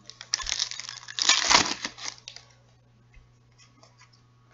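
Rustling and crinkling of a hockey card pack and its cards being handled, loudest about a second and a half in, then a few light clicks.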